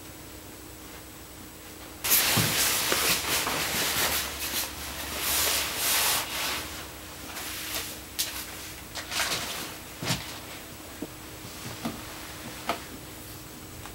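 Loud rustling and rubbing of a hairdresser's cutting cape as it is draped and fastened around a seated person, starting suddenly about two seconds in and lasting several seconds. It is followed by scattered light clicks from handling scissors and comb.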